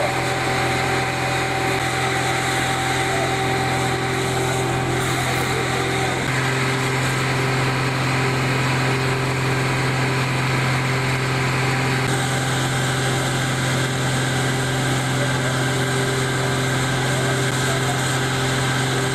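Fire engine's pump engine running steadily at a constant speed, with a steady hiss over it. Its tone shifts slightly twice.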